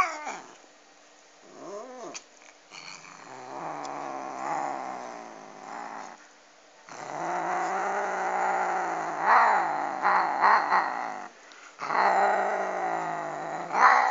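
A domestic cat growling over a duck bone it is eating: a short call about 2 s in, then three long, drawn-out growls, the middle one swelling louder partway through.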